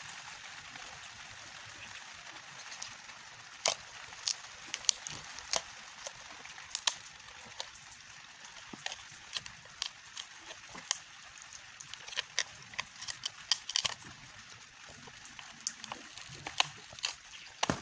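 Scattered, irregular light clicks and taps from handling an opened tablet's plastic casing and internal parts, over a steady hiss.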